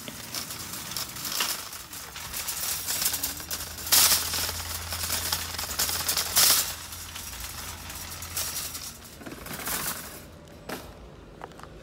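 Wire shopping cart rattling as it rolls across a parking lot with a car battery in its basket, with two louder clanks about four and six and a half seconds in; the rattle dies down near the end.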